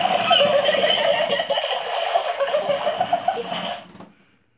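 Sea sound effect of splashing water with bird cries over it, cutting off suddenly about four seconds in.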